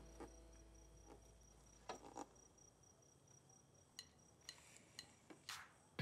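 Near silence with a few faint, scattered clicks and taps as a plastic food container is lifted out of a microwave oven.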